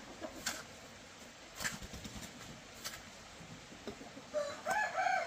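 Four scattered sharp knocks, roughly one a second, then near the end a short wavering call, typical of a domestic chicken.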